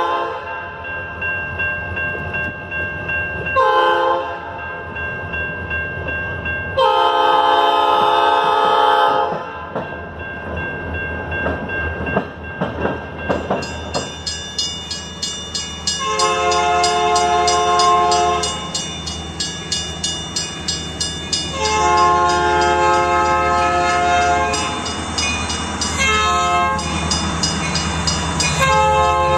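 New-cast Nathan P5 locomotive air horn sounding its chord in a short blast, then a long one, followed by the clickety-clack of railcar wheels passing. About halfway through, another Nathan P5 horn, badly fouled, blows two long blasts, a short and a long: the grade-crossing signal.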